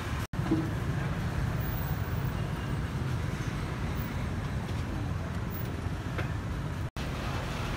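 Outdoor street ambience: a steady low rumble of passing traffic and market background, broken twice by a very brief dropout.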